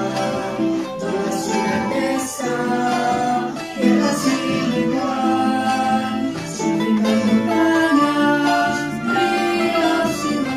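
A recorded performance by the student music ensemble, led by plucked strings, with notes held and changing about once a second.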